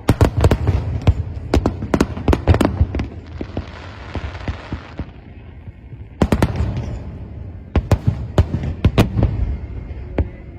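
Fireworks display: rapid volleys of sharp aerial-shell bangs, easing to a crackling hiss in the middle, then a fresh volley of bangs from about six seconds in.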